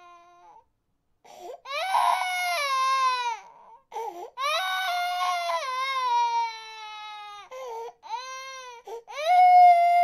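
Baby crying in long, loud wails, each sliding down in pitch at its end, with short catches of breath between them.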